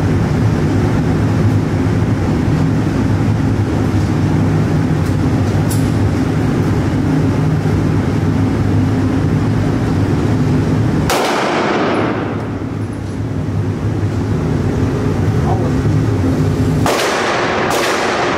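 A steady low hum, then a pistol shot about eleven seconds in that rings on in the enclosed indoor range, followed near the end by two more shots less than a second apart.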